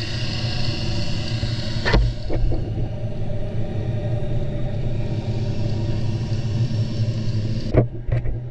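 Muffled underwater sound picked up by a submerged camera: a steady low drone, with a sharp knock about two seconds in and another near the end.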